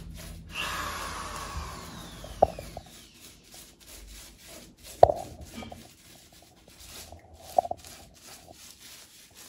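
Small paintbrush scrubbing and dabbing paint onto a textured wall: a steady run of short, scratchy strokes, with three sharper knocks about two and a half seconds apart.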